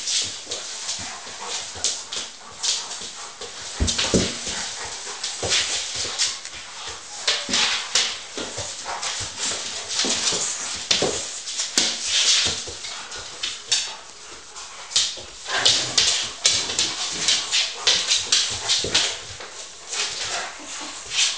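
Two dogs play-fighting on a hard wooden floor: a jumble of quick claw clicks and scrabbling, with whining.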